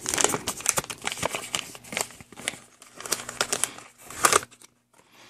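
Pink anti-static plastic zip bag crinkling and rustling in the hands as it is pulled open to get a circuit board out, in irregular bursts of crackles that stop near the end.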